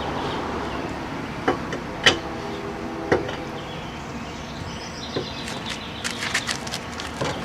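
Metal lug wrench knocking against the wheel's lug nuts while they are retightened: three sharp clinks, the loudest with a brief metallic ring, then a quick run of lighter clicks near the end.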